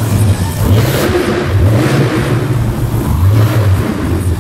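Monster truck engine revving in repeated surges, its pitch rising and falling as the truck drives.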